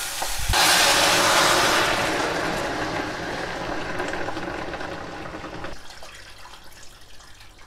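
Water poured from a plastic jug into a stainless steel pot of raw meat and vegetables, adding the water for the meat broth. The pour starts about half a second in, is loudest at first, then tapers off and stops about six seconds in.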